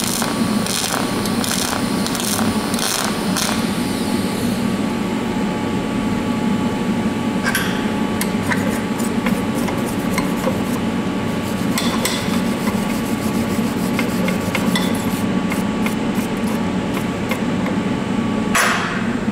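TIG welding arc on brass, pulsed by hand: a crackling buzz switching on and off about twice a second for the first few seconds. Then the arc stops, leaving a steady low hum with scattered faint ticks and a brief hiss near the end.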